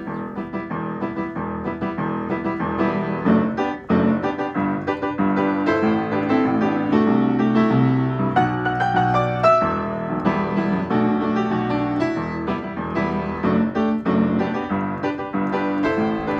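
Background music led by piano or electric keyboard, a run of quick notes over held chords.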